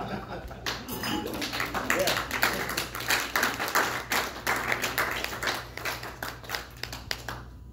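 Rapid, irregular sharp taps, several a second, stopping suddenly near the end, with voices underneath.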